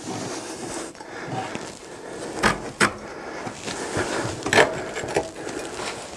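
Knocks and rubbing from handling and adjusting a loft ladder's frame hung in the ceiling opening: a few sharp knocks, the loudest about two and a half and four and a half seconds in, over soft scraping.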